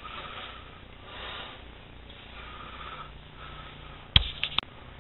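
Faint rustling room noise, then three quick clicks a little after four seconds in, the first a sharp knock with a low thump under it.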